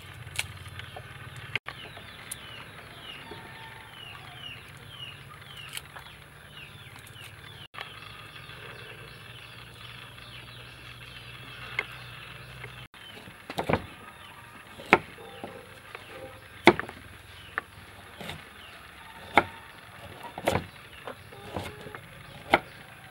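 Kitchen knife chopping a root on a round wooden chopping board: a string of sharp, irregular chops about a second apart in the second half. Before that, a bird calls repeatedly with short falling chirps.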